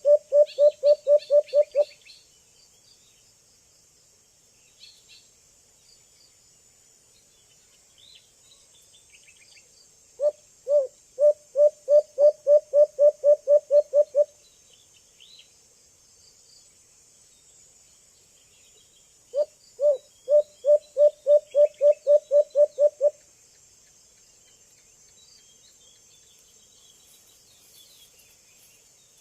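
A young white-eared brown dove calling: runs of low hooting notes that start spaced and speed up, each run about four seconds long. One run ends about two seconds in, the next starts about ten seconds in and another about nineteen seconds in, over a steady high insect drone and faint small bird chirps.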